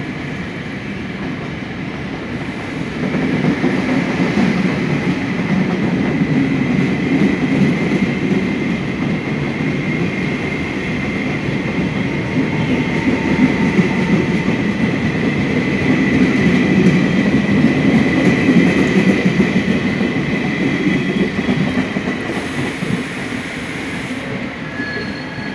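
Taiwan Railways Chu-Kuang Express passenger carriages rolling past on the rails as the train pulls out of the station, a steady rumble of wheels with a thin high tone running over it. The sound swells as the cars gather pace and eases off near the end as the last car moves away.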